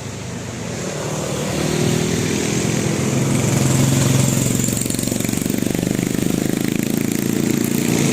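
A road vehicle's engine drawing near, growing louder over the first two seconds, then running steadily close by.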